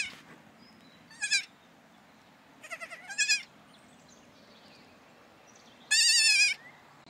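Baby goats bleating with a quavering pitch: short bleats about a second in and around three seconds, then a longer, louder bleat near six seconds.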